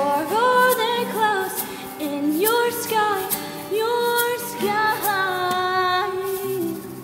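A female voice sings a slow melody with long sliding notes over an acoustic guitar.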